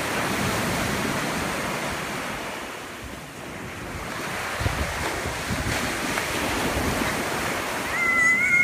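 Ocean surf washing in around the wooden pilings of a pier and up the sand, swelling at the start and again through the second half, with wind on the microphone. Near the end a wavering high-pitched call begins.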